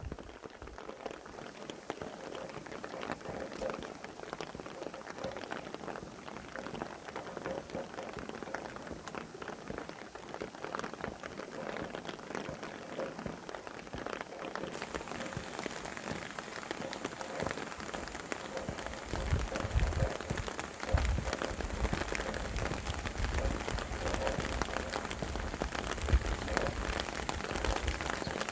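Steady rain with many separate drops pattering, and a few low gusts of wind rumbling through about two-thirds of the way in.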